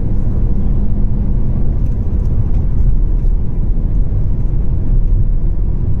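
Steady in-cabin road noise of a Volvo V40 T3 cruising at about 116 km/h: a constant low rumble of tyres, wind and engine.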